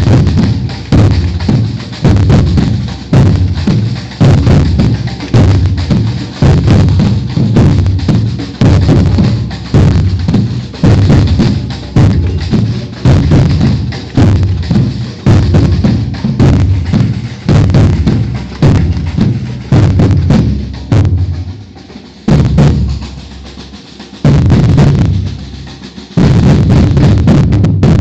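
Batucada percussion ensemble of bass drums and snares playing a Brazilian samba rhythm. Deep bass drum strokes come about once a second, with fast snare strokes between them. Roughly twenty seconds in the groove breaks down to a few spaced hits, then the full band comes back in.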